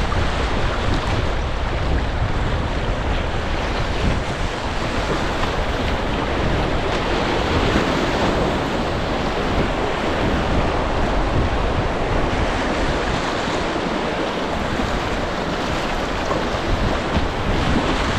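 Shallow river rapid rushing steadily over rocks, with wind buffeting the microphone.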